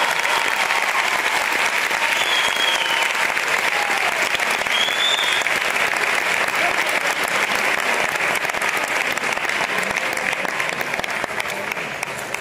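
Audience applauding in an auditorium hall just after the music ends, steady clapping with a couple of brief high cries over it, easing off near the end.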